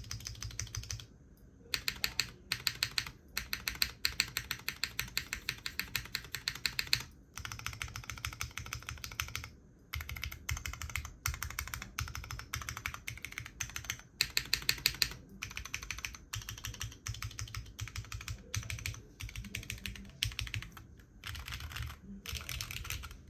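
Fast typing on a custom mechanical keyboard: Cherry MX Butter Brown tactile switches, lubed and filmed, in a SINGAKBD Kohaku R2 with an aluminium plate, no foam and GMK Nord keycaps, giving a quick run of clacky keystrokes. The typing stops briefly a few times.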